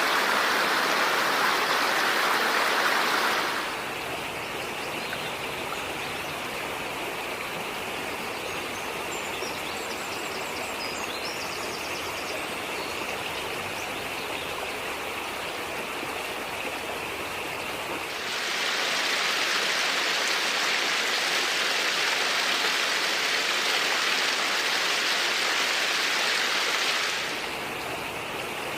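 Flowing stream water rushing steadily, louder and brighter for the first few seconds and again for a stretch past the middle.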